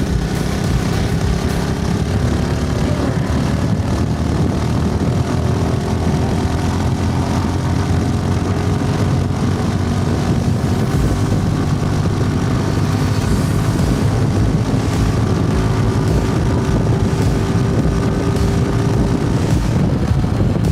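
Suzuki Gixxer SF's single-cylinder engine pulling the bike along, a steady exhaust drone whose pitch drifts slowly up and down as the revs change.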